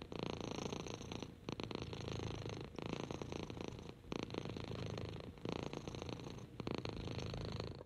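Six-month-old orange-and-white kitten purring steadily while being stroked, the purr breaking briefly about every second and a half.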